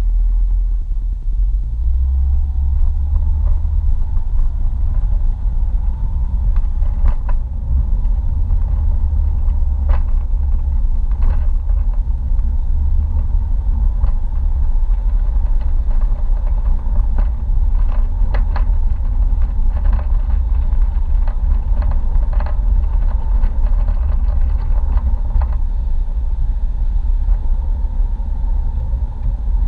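Steady low rumble of a car driving on a wet road, heard from inside the cabin, with a few light knocks or rattles along the way.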